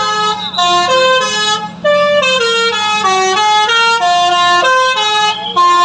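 Indonesian bus 'telolet' musical horn playing a quick tune of short notes that step up and down in pitch, one after another, with a brief break about two seconds in.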